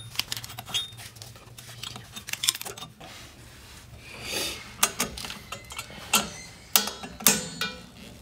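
Scattered metal clicks and clinks, with a brief scrape about four seconds in, from a screwdriver working on drum brake shoes and their steel springs and hardware as they are fitted to the backing plate.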